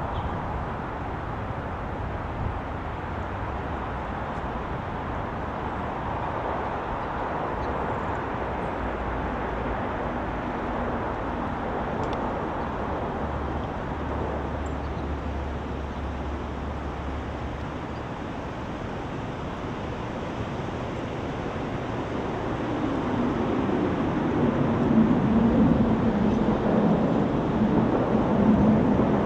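Steady outdoor background rumble. In the last several seconds a motor grows louder, its pitch falling and then holding steady.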